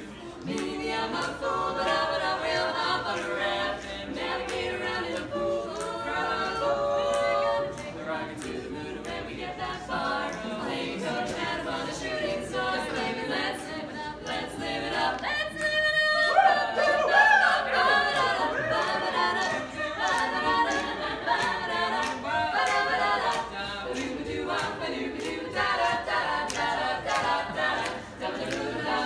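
Four-woman a cappella group singing an upbeat song in close harmony, with no instruments. About halfway through the voices break off briefly, then come back in with a rising swoop.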